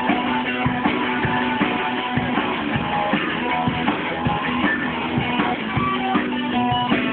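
A rock band playing live: electric guitars over a drum kit keeping a steady beat. It sounds dull, with no high treble, as heard through a camera microphone.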